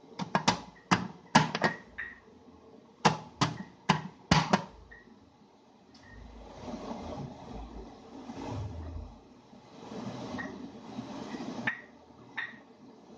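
The domed aluminium lid is set and shifted on an aluminium steamer pot. It gives a run of sharp metallic clinks and knocks in the first few seconds. After that comes a fainter, uneven steady hiss and low rumble from the pot steaming on the heat.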